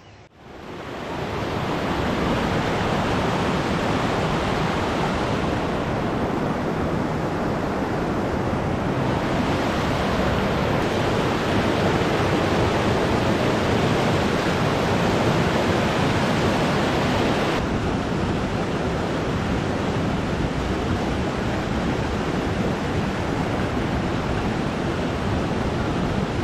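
Small mountain creek rushing and splashing over boulders and little cascades close by, a steady loud rush of water. Its tone shifts slightly a few times.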